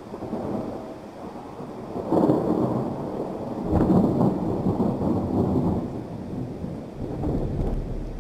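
Thunder rumbling over steady heavy rain, swelling about two seconds in and again near four seconds, then slowly easing.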